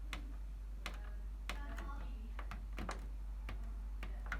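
Hoover VisionDynamic DYN9144DG washing machine's control panel clicking as its buttons and program dial are worked: about ten sharp, irregularly spaced clicks.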